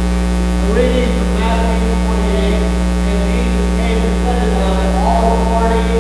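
Loud, steady electrical mains hum on the recording, with a faint voice speaking under it.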